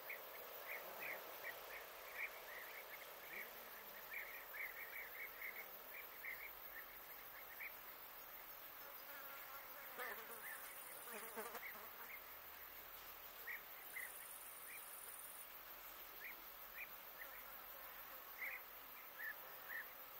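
Faint summer outdoor ambience: insects buzzing, with many short high chirps scattered throughout.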